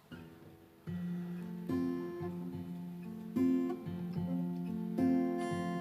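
Song introduction on a solo acoustic guitar: chords picked and strummed, starting about a second in and changing roughly every second and a half.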